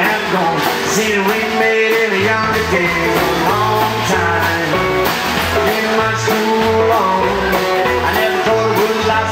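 Live rockabilly band playing an instrumental passage between verses, with electric and acoustic guitars and drums. A stepping bass line comes in about two seconds in.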